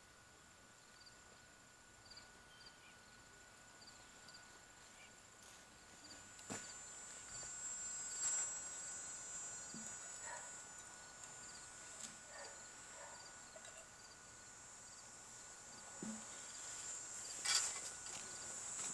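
Crickets and other insects singing outdoors: a steady high drone with small chirps repeating about once or twice a second. A few sharp clicks and knocks break in, the loudest near the end.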